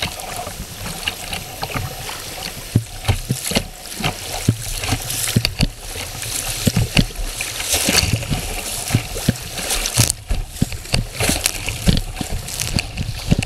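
Creek whitewater through class II rapids, rushing and splashing close around a kayak, with many short, sharp slaps and knocks. It grows louder a few seconds in as the kayak enters the rougher water.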